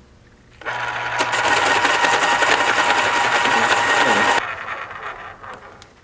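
Electric pencil sharpener grinding a pencil: a loud steady motor whirr that starts suddenly under a second in and cuts off after nearly four seconds.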